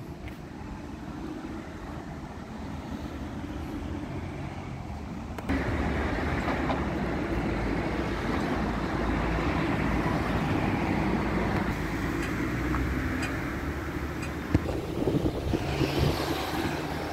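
Steady road traffic noise from cars passing on a wide multi-lane city road, jumping abruptly louder about five seconds in.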